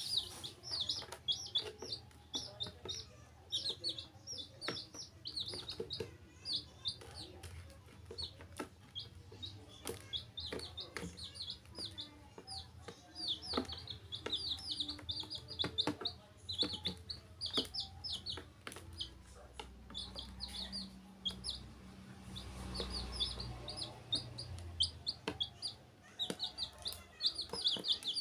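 A group of baby chicks peeping without pause, many short high cheeps a second overlapping one another, with scattered light taps of beaks pecking feed off the plastic tub floor.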